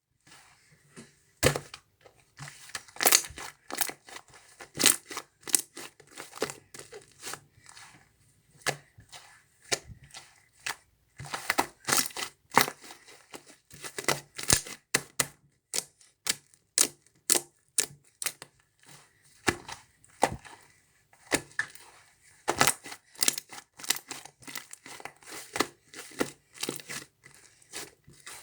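Large fluffy slime being squeezed and pulled apart by hand, giving a run of irregular crackling pops and small tearing sounds.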